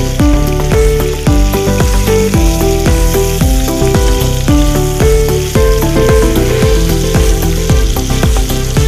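Background music with a steady beat and bass, over chicken pieces sizzling as they fry in oil in a pan.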